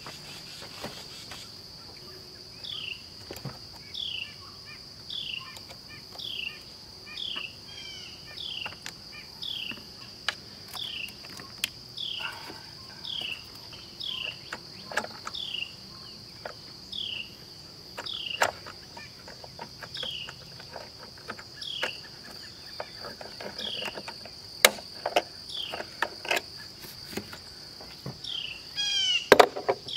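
A steady high-pitched insect drone, with a bird repeating a short falling chirp about once a second. Scattered sharp clicks and knocks come from hands and tools working the car battery's terminals and hold-down, with a cluster of louder knocks near the end as the battery comes out.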